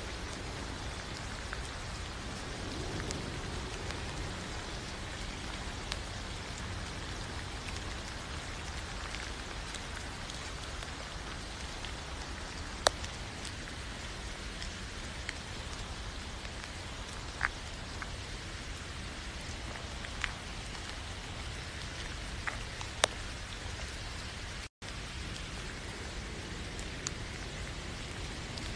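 Steady rain falling, an even hiss with a few louder sharp ticks scattered through it. The sound cuts out for an instant near the end, then carries on.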